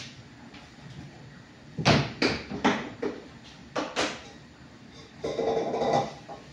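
Kitchen utensils and bowls being handled on a countertop: a string of sharp knocks and clinks about two to four seconds in, then a longer clatter lasting under a second near the end.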